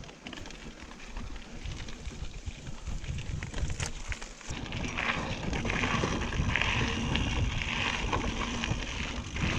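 Mountain bike being ridden along a forest singletrack: tyres rolling over the dirt trail, with wind noise on the microphone. It gets louder and hissier about halfway through.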